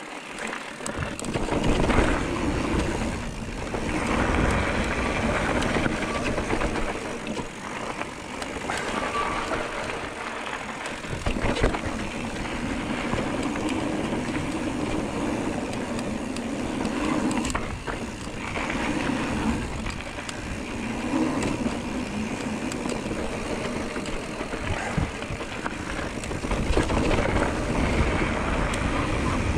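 Giant Trance E+3 electric mountain bike being ridden down a dirt trail: steady rolling and wind noise with a low rumble, broken by a few sharp knocks and rattles over bumps.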